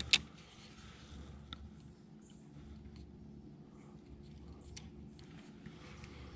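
Faint, irregular small clicks and ticks over a low steady hum, with one sharp click right at the start.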